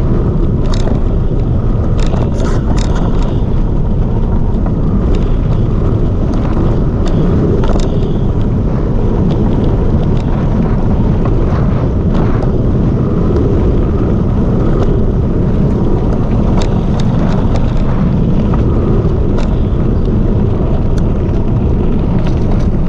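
Calibre Bossnut mountain bike rolling down a dirt track: a loud, steady rumble of knobby tyres on the ground mixed with wind buffeting the microphone. Scattered sharp clicks and rattles come from grit and the bike jolting over bumps.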